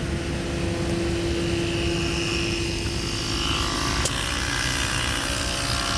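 Road traffic noise at the roadside, a steady rumble with a vehicle going by and hiss building in the second half. There is a single sharp click about four seconds in.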